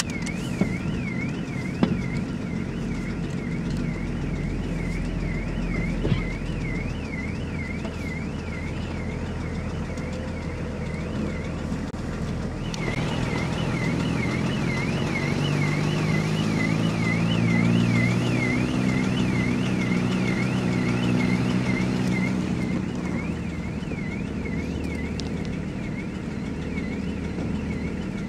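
An electronic alarm warbles up and down about twice a second and stops briefly near the middle before starting again. Under it runs the low sound of a car engine, heard from inside the cabin, which rises in pitch partway through as the car moves off in the queue.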